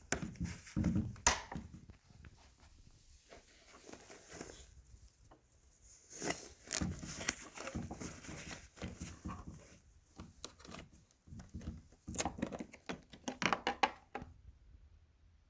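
Irregular clicks, knocks and rustling from things being handled, in bunches with short pauses between them; no motor is running.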